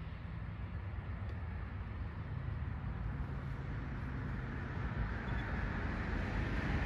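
A steady, faint low engine rumble under a background hiss, growing slightly louder near the end.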